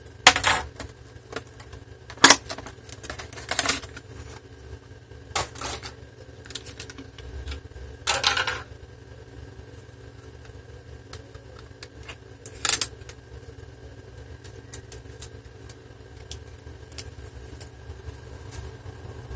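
Hands handling a cardboard SSD box and the new 2.5-inch SSD as it is unboxed: scattered clicks, taps and short rustles, a few louder than the rest, thinning out after the first half, over a steady low hum.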